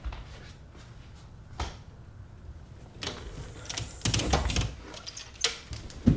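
A wooden door being worked open by hand: two single clicks, then from about halfway a stretch of rapid rattling and clattering of the door and its fittings, ending in a sharp bang.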